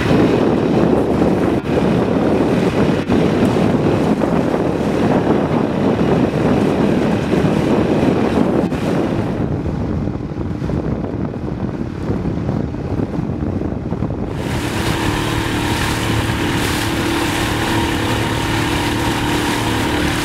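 Wind on the microphone and water rushing past the hull of a catamaran under way. The sound changes abruptly about nine seconds in, becoming duller, and again about fourteen seconds in, when a steady low hum sets in under the water noise.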